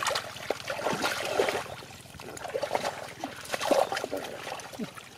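Hands splashing and sloshing in shallow muddy water while groping for catfish, in irregular bursts that thin out near the end.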